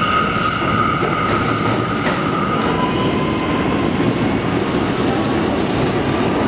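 New York City Subway train pulling out of an elevated station and moving away: a steady rumble of steel wheels on the rails under a steady high-pitched tone, which drops a little in pitch about three seconds in.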